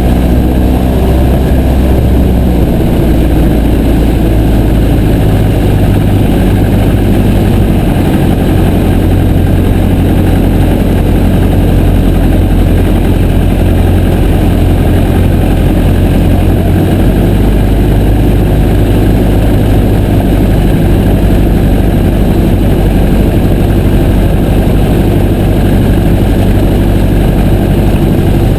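Piper J3 Cub's engine and propeller running steadily, a loud low drone that holds constant.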